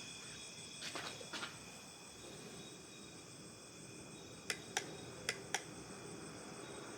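A steady, faint chorus of crickets chirping, with a few soft clicks about a second in and four sharp clicks past the middle.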